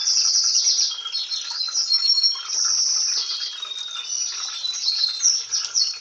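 A songbird singing a long, continuous run of high chirps and warbling trills, over the fainter rush of water filling the washing machine's tub.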